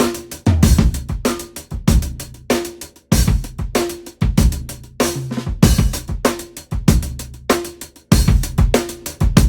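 Sampled drum kit (Spitfire LABS Drums) playing a steady groove of kick, snare, hi-hats and cymbals, with the punchy, compressed sound of parallel drum compression.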